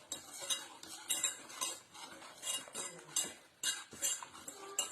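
A utensil stirring a hot mixture in a pot to melt it through, clinking and scraping against the sides and bottom several times a second.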